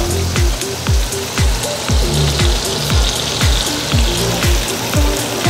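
Background music with a steady thumping beat, over the sizzle of rice and vegetables stir-frying in a wok.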